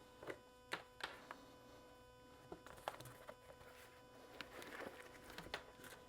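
Faint handling sounds: a few scattered light clicks and a soft rustle as pliers grip and pull a footwarmer cable through a ski boot liner, over a faint steady hum.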